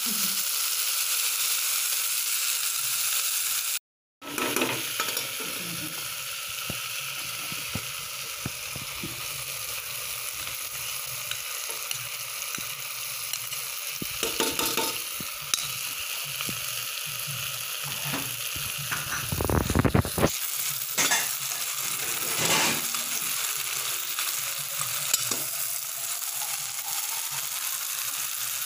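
Food sizzling in an open aluminium pressure cooker on a gas stove, with a metal spoon scraping and clinking against the pot now and then as meat and rice are stirred. The sound cuts out briefly about four seconds in.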